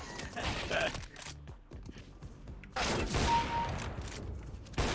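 Video game gunfire sound effects: shots rattle off in the first second, with a louder volley about three seconds in and another sharp shot near the end.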